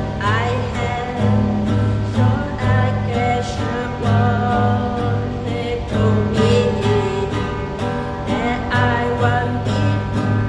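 A song played on acoustic guitar with a voice singing softly over it, the bass notes pulsing steadily.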